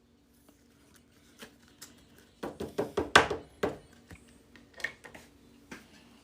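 Booster pack foil and trading cards being handled: a quick run of sharp, snapping rustles about two and a half seconds in, with soft taps and clicks scattered around it.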